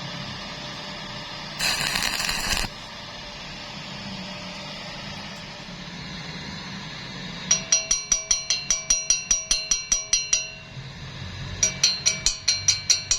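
A metal piece struck rapidly and repeatedly, about seven blows a second, ringing with the same metallic tones under every blow, in two runs with a short pause between. Before the blows there is a steady low hum, and about two seconds in a short burst of hiss.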